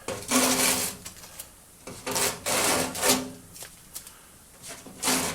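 Backing being peeled off the damper: three rasping, tearing pulls about a second long each, the last one near the end.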